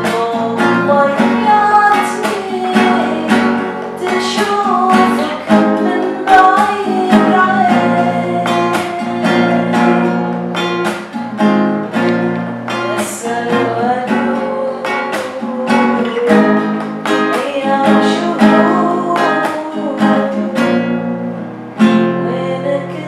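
Acoustic guitar strummed in a steady rhythm, with a voice singing over it. Near the end there is a firm strum, after which the playing drops in level.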